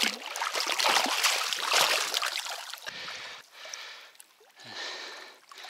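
A hooked carp (sazan) thrashing and splashing in shallow water as it is grabbed by hand and hauled ashore. The splashing is loudest in the first two seconds or so, then dies down to a few quieter splashes and scrapes.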